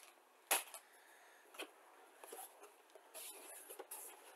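Faint handling of a cardboard model-kit box as it is picked up and turned over: a sharp tap about half a second in, another lighter one a second later, then scattered soft scrapes and rustles.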